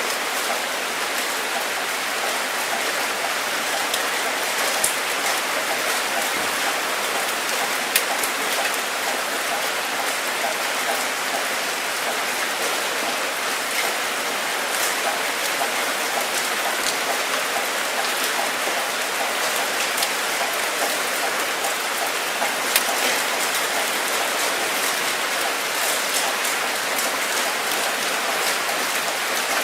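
Steady rain falling, an even hiss with scattered sharp drop ticks, a few of them louder.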